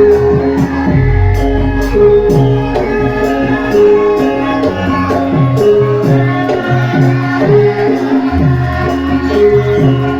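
Live Javanese gamelan music for a Lengger dance: a repeating melody of struck pitched notes over a steady pulse of drum strokes that drop in pitch.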